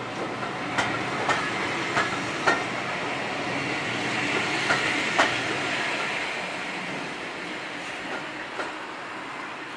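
Railway passenger coaches rolling past on jointed track: wheels clicking over rail joints in pairs about half a second apart, over a steady rolling noise with a hiss that swells around the middle and fades as the last coach moves away.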